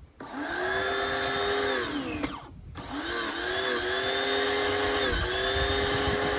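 A new pressure washer's motor and pump starting up and running with a steady whine, cutting out about two seconds in and starting again a moment later, with a brief dip in pitch near the end. It delivers little pressure, which the owners put down to air not yet bled from the pump and hose.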